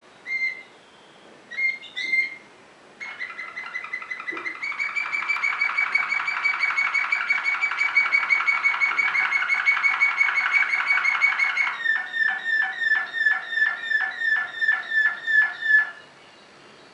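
Waterslager (Malinois) song canary singing: a few short call notes, then from about three seconds in a long, fast rolling trill. Near the end it changes to a slower run of repeated notes, about three a second, which stops about a second before the close.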